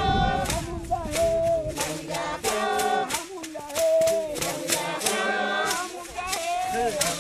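A group of voices singing together in call-and-response style over a steady beat of sharp claps.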